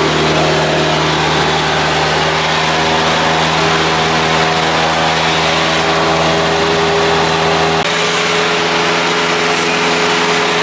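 Cessna 172's piston engine and propeller droning steadily in cruise, heard inside the cockpit with the rush of air around the cabin. About eight seconds in, the deepest part of the drone drops away and its pitch shifts slightly.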